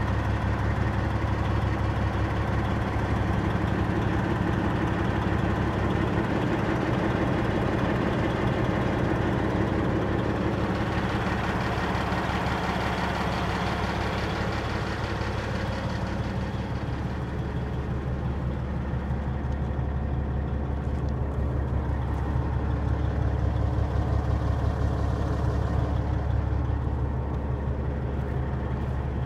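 Caterpillar C-15 inline-six diesel in a 2006 Peterbilt 379 truck tractor, running steadily with a low drone that grows fuller for a few seconds around the middle.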